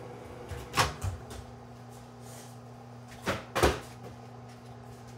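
Kitchen handling sounds at an over-the-range microwave as its door is opened and a bowl is handled: a sharp click about a second in, then two louder knocks a little after three seconds. A steady low hum runs underneath.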